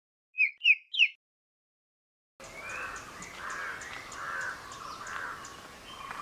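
Birds calling: three quick, sharp chirps about half a second in, then, after a moment of silence, repeated calls about once a second over a steady background hiss.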